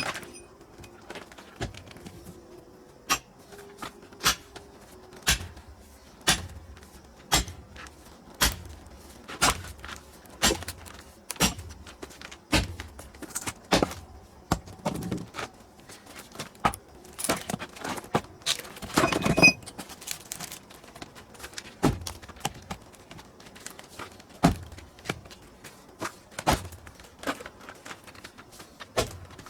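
Pine firewood being split: a striking tool hits the wood about once a second, in sharp, even blows. A little past halfway there is one longer, louder burst of noise.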